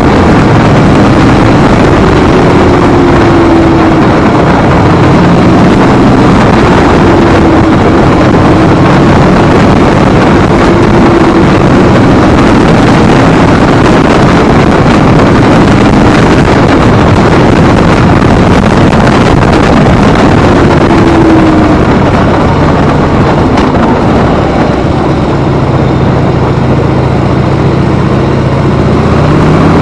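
Harley-Davidson motorcycle engine running while riding, buried under heavy rushing wind noise on the microphone. The engine note rises and falls with speed.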